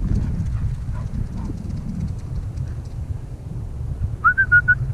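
Wind buffeting the microphone. Near the end it is cut into by a short run of four or five clear high notes, rising at first and then held level.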